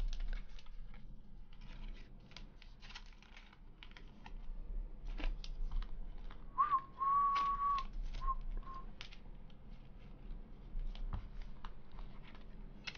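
Trading cards and plastic card sleeves being handled, making light clicks and rustles throughout. In the middle comes a short whistled phrase: one held note, then two brief ones.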